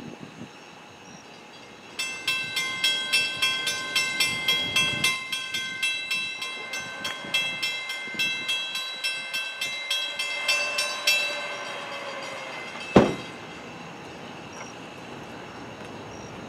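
Railroad grade-crossing warning bell ringing at about three strikes a second for some nine seconds, then falling silent. This is the bell that sounds ahead of an approaching train. A single sharp bang follows a couple of seconds later.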